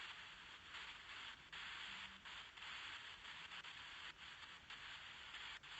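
Near silence: a steady faint hiss.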